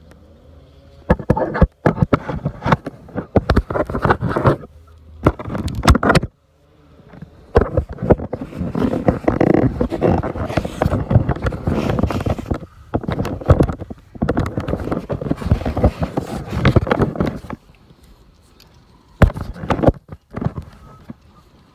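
Phone microphone being handled, with fingers and shirt fabric rubbing and scraping right on it: loud crackling and rustling in several long stretches with short pauses, dying down near the end.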